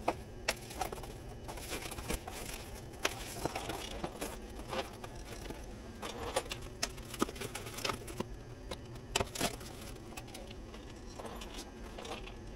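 Side cutters snipping zip ties off an e-bike's packaging: irregular sharp clicks, a few seconds apart or closer, over the soft rustle of foam wrap and plastic being handled.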